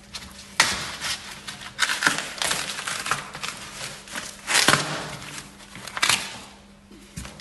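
Packing material being pulled off and handled while an e-bike is unboxed: irregular rustling and crinkling with several sharper bursts, the loudest just under five seconds in.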